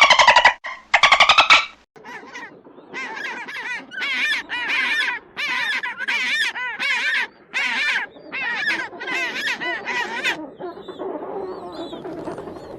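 A bird calling over and over: about nine short, wavering calls in an even series, each about half a second long. A louder pitched sound comes in the first second and a half, and fainter rougher calls near the end.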